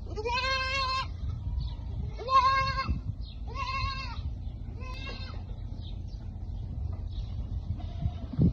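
A farm animal bleating four times in about five seconds, each bleat under a second long, the last one fainter, over a low steady rumble.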